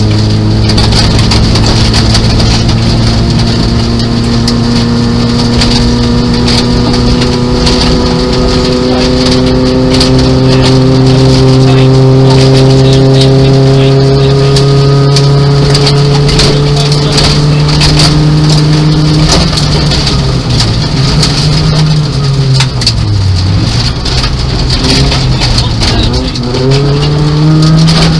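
A Nissan Micra 1.0-litre rally car's engine heard from inside the cabin at stage pace. It pulls hard with its pitch climbing slowly for most of the stretch, then drops and picks up again several times near the end. Gravel ticks and clatters against the car throughout.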